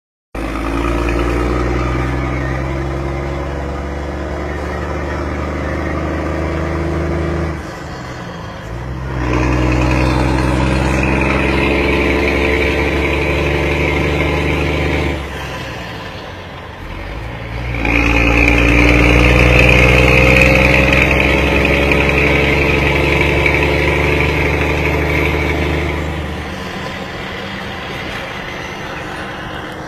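Scania truck engine revved and held three times, each time dropping back in between, then settling to a lower steady run near the end.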